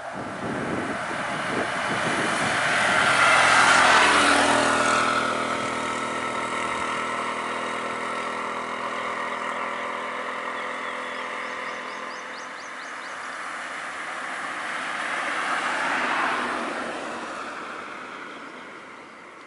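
A three-wheeler auto-rickshaw drives past close by, its small engine loudest about four seconds in and dropping in pitch as it goes by. A car then passes, loudest a few seconds before the end.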